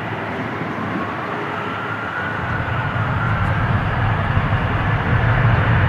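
Boeing 747-400 jet engines running with a steady rumble and a faint, slightly rising whine. About two and a half seconds in, a deep low rumble builds and the sound grows steadily louder as thrust comes up for takeoff.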